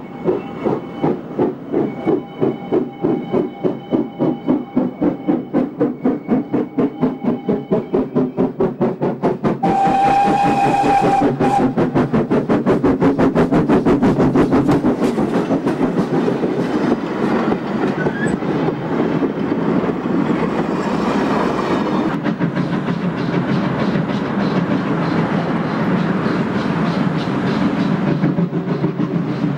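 GWR 1366-class 0-6-0 pannier tank locomotive working a goods train. Its rhythmic exhaust beats quicken as it draws near, and a short steam whistle blast comes about ten seconds in. Then the beats grow louder, mixed with the clatter of the goods wagons rolling past close by.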